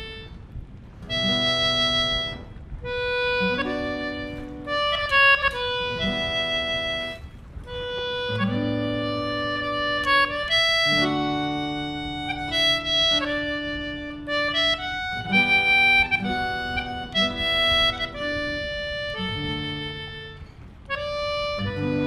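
English concertina playing a tune in sustained notes and chords, with a strummed acoustic guitar accompanying.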